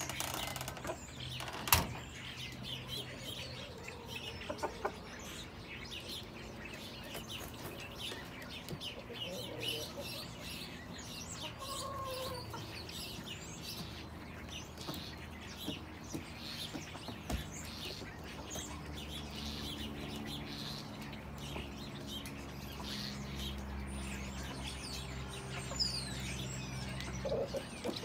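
Backyard chickens pecking at food on a plate on a wooden deck, with many short taps and soft clucks, and small birds chirping now and then. One sharp tap about two seconds in is the loudest sound.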